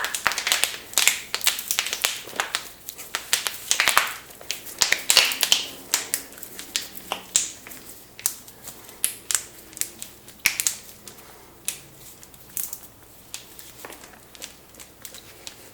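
About eight people cracking their knuckles at once: a rapid, irregular run of sharp pops and cracks from their finger joints, densest over the first several seconds and thinning to scattered single pops.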